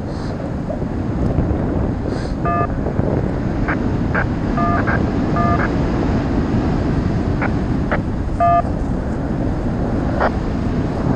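Wind rushing over the microphone in paragliding flight, steady and loud, with about five short electronic beeps scattered through it, three of them close together in the middle.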